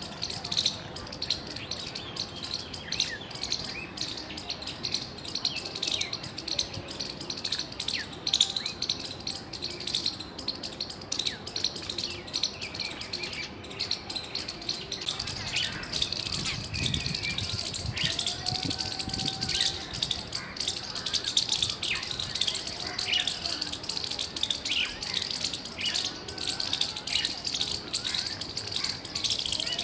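Squirrel chirping: a long run of short, high-pitched chips repeated rapidly and continuously.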